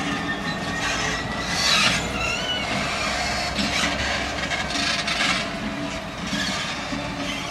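Class 66 diesel locomotive, its EMD two-stroke engine running, moving slowly without a train, with a steady grating scrape from its wheels on the rails and a brief squeal about two and a half seconds in.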